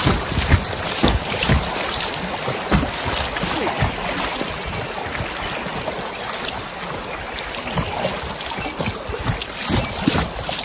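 Creek rapids rushing around an inflatable kayak, with irregular splashes of water slapping against the boat.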